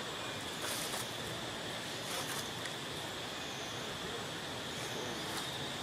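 Steady outdoor forest ambience: an even background hiss with a continuous high-pitched drone running through it.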